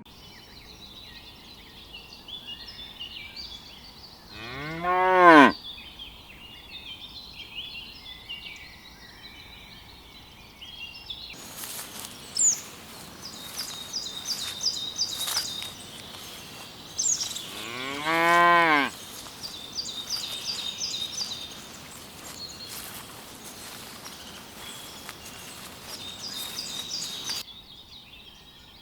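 A cow mooing twice, a long call each time that rises and then drops in pitch, the calls about thirteen seconds apart, over continuous high-pitched chirping.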